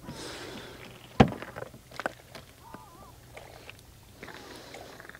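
A sharp knock about a second in, then several lighter clicks and taps, with a short wavering bird call in between.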